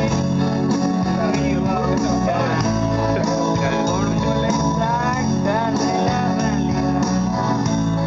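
Karaoke backing track playing, with guitar, and a voice singing along over it through the middle of the stretch.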